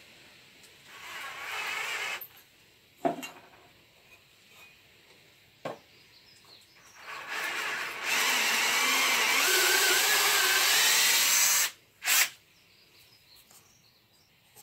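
Cordless drill with a small twist bit boring into a wooden workbench leg: a short burst of drilling, a couple of sharp knocks, then a longer steady run of about four seconds, and a last brief burst.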